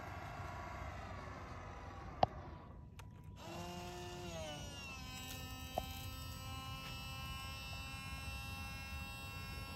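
Small electric motors of a radio-controlled model fireboat whining. The pitch sags and shifts a few times, with a sharp click twice, then settles into a steady whine of several tones while the fire monitors spray water.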